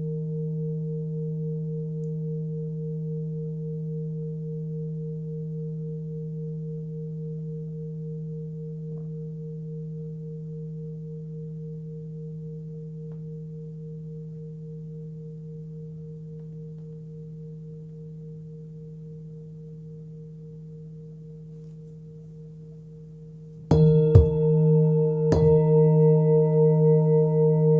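A 21.7 cm Tibetan singing bowl tuned to about 158 Hz (D#) ringing with a low hum and a higher overtone that pulses, fading slowly over some twenty seconds. Near the end it is struck twice, a little under two seconds apart, and rings out loud again.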